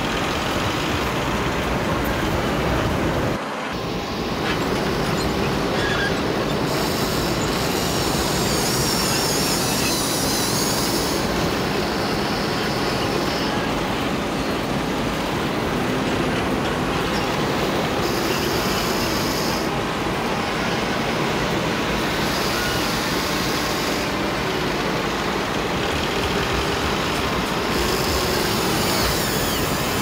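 Steady rushing of surf and wind, with the high whine of a HUINA remote-control toy excavator's electric motors starting and stopping in several stretches as it works the boom and bucket.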